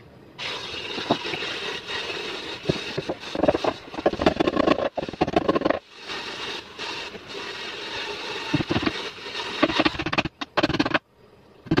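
Woodworking tool noise on wood: irregular scraping with scattered knocks and clicks, cutting off abruptly twice.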